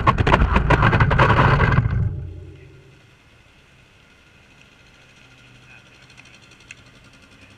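Bicycle going down on wet asphalt: a loud clatter and scrape of metal on the road for about two seconds, which dies away to a faint steady street background with a low hum once the bike lies still.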